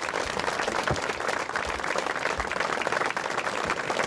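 A crowd applauding, many hands clapping at an even level.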